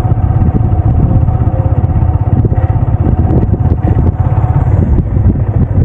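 Loud, fluttering low rumble of strong wind buffeting the microphone, with a faint steady tone above it.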